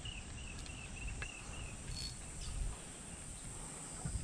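Insects chirping: a steady high hum with a faint, quickly repeated chirp through the first second or so. Underneath are a low rumble and a few light clicks.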